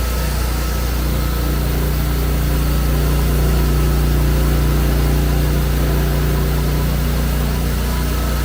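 Horizontal foam-cutting machine running steadily with a strong low hum, swelling slightly louder midway.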